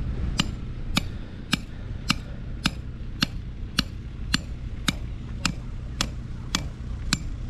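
A small hand tool striking stony, gravelly ground in sharp, evenly spaced knocks, about two a second, as a hole is dug, over a steady low rumble.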